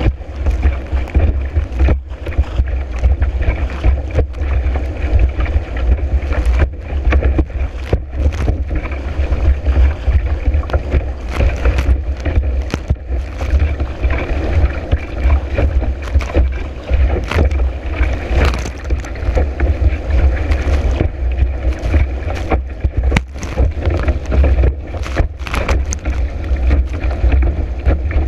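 Strong wind buffeting a kiteboard-mounted action camera's microphone as the board skims over choppy water, with frequent irregular slaps and spray as the board hits the chop.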